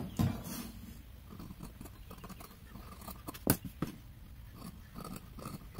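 Scissors cutting a paper sewing pattern along the neckline, a few sharp snips of the blades, the loudest about three and a half seconds in, with light rustling of the paper.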